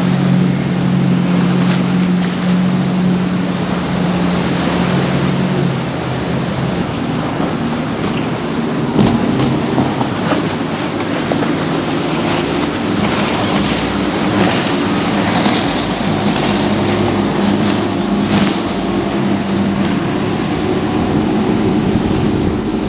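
Powerboat engines running hard as boats pass, over steady wave and wind noise. One engine's drone drops away about six seconds in, and another engine tone comes in around thirteen seconds.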